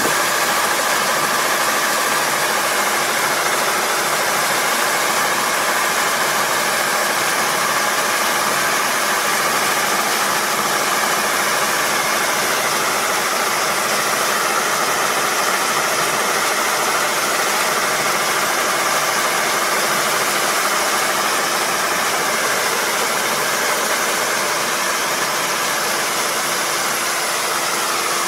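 Kubota ER470 four-row combine harvester's diesel engine and machinery running steadily: a dense, even mechanical noise with a few unchanging whining tones in it.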